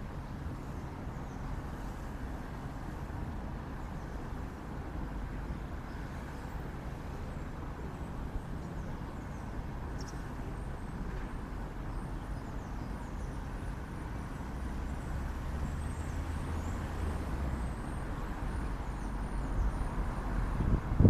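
Outdoor ambience of road traffic: a steady low hum of vehicles, with faint bird chirps above it. The traffic grows louder near the end, as a vehicle comes closer.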